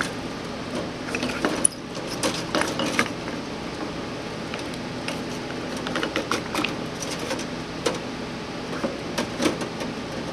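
Metal parts clinking and clattering as carburetors and a cable set are handled and set into a stainless-steel ultrasonic cleaner tank: scattered clicks and knocks in a few clusters, over a steady running hum.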